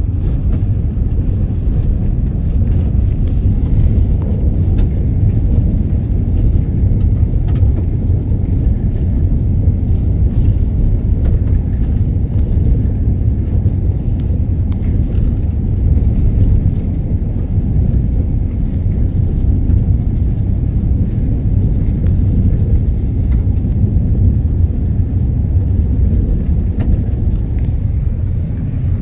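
Steady low rumble of a car driving, heard from inside the cabin, with a few faint ticks over it.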